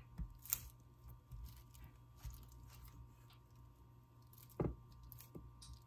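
Plastic wrap crinkling faintly as hands press and pat it down over a soft chocolate mixture in a baking pan, with one louder short thump about four and a half seconds in.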